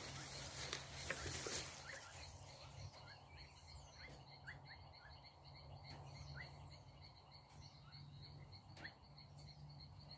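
Faint outdoor animal chorus: a steady run of rapid high chirps, with short sliding calls repeating now and then. A rush of noise in the first two seconds is the loudest part.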